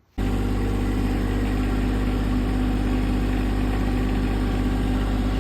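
Small garden tractor's engine running steadily at a constant speed, cutting in suddenly just after the start.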